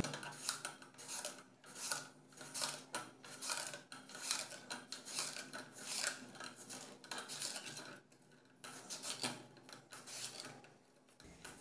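Peeled raw potato being sliced on the blade of a stainless steel chips cutter over a bowl of water: a run of faint scraping strokes, about two a second, with a short pause about eight seconds in.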